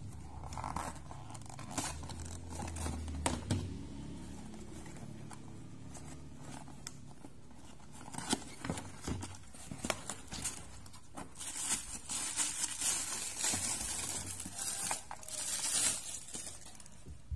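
Unboxing handling noise: taps and scrapes as a cardboard box is turned and its white inner box slid out and opened, then a stretch of crinkling from about twelve to sixteen seconds in as the wrapped speaker is pulled out of the box.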